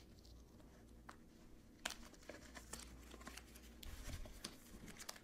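Faint crinkling and rustling as a thin white liner is handled and drawn out of a cardboard tube, with scattered light clicks and one sharper click about two seconds in.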